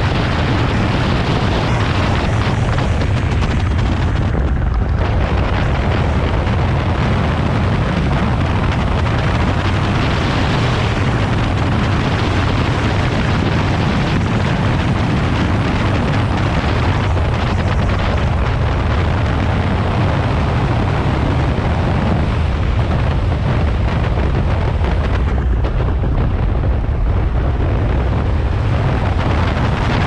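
Wind buffeting the microphone of a Zero FXE electric motorcycle ridden at road speed: a loud, steady whoosh, heaviest in the low end, with no engine note.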